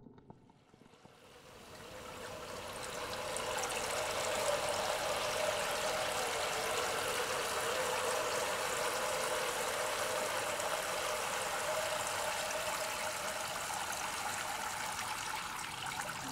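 Water pouring through a perforated glass bowl in many thin streams and splashing into a pot beneath. It fades in over the first few seconds and then runs steadily.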